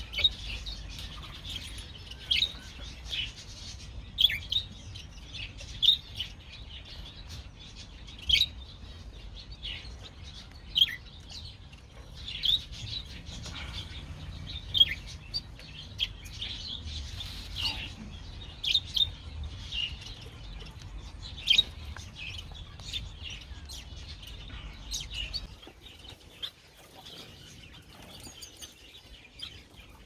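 Small aviary songbirds chirping: short, high chirps about every second or two, over a low rumble that drops away near the end.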